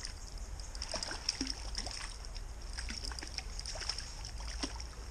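Shallow stream water running and rippling, with many small, irregular splashes and drips as a wading angler dips his hands and a freshly caught trout into the water.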